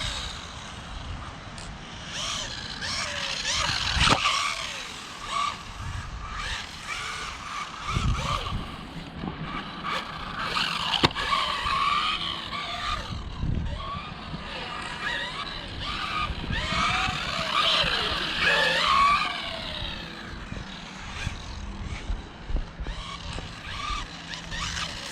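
Electric RC buggy (Rlaarlo AMX12, 1/12 scale) being driven: its motor whines, rising and falling in pitch as the throttle is worked, with tyre scrub on concrete. A few sharp knocks are heard along the way.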